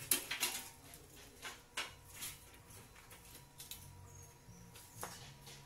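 Scattered light knocks and clinks of a galvanized hollow-steel frame being handled and shifted, several close together at the start and a few single ones after.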